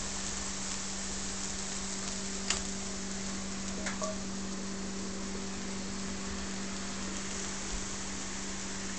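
Semolina mbesses cakes sizzling gently in an earthenware tajine, an even hiss with a steady low hum under it. A sharp click about two and a half seconds in and a couple of light knocks about four seconds in.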